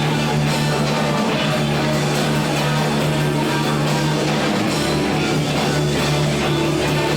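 Rock music: a band playing electric guitars and drums, with held low notes underneath.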